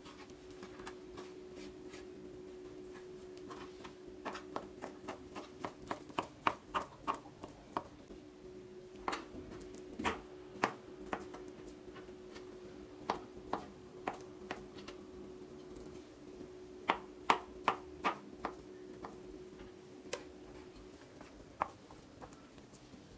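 Kitchen knife cutting boiled potatoes on a plastic cutting board: irregular knocks of the blade on the board, in quick runs of several strokes with short pauses between. A faint steady hum lies underneath.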